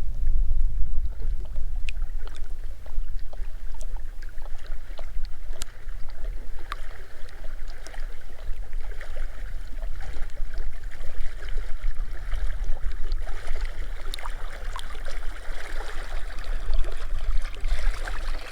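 Wind buffeting the microphone with a steady low rumble, over the splash and drip of paddle strokes on the water as a packraft is paddled across a lake. The water sounds grow stronger toward the end.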